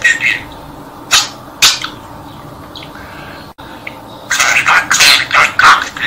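Pet budgerigar chattering in its scratchy, speech-mimicking talking voice: a few short bursts in the first two seconds, a pause, then a fast run of chatter over the last two seconds.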